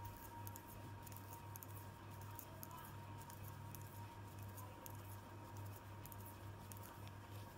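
Faint, irregular clicking of metal knitting needles as stitches are purled by hand, over a steady low hum.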